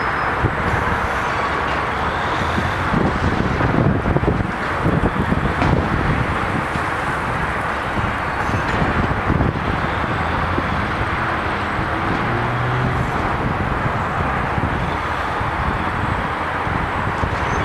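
Steady outdoor rumble and hiss of traffic and wind, louder and more uneven about three to six seconds in.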